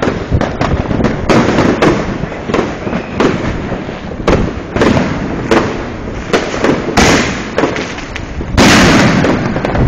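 New Year's fireworks and firecrackers going off all around: many sharp bangs in quick, irregular succession, with a louder, longer blast of about half a second near the end.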